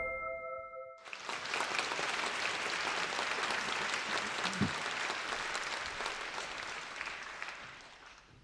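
Large theatre audience applauding, a dense steady clapping that fades out near the end. It opens with the tail of a held chime chord that stops abruptly about a second in.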